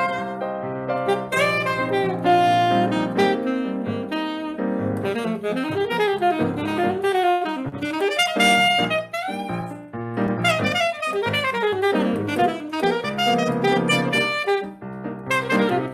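Saxophone playing a fast, flowing melodic line of quickly changing notes over piano accompaniment, in a Brazilian jazz style.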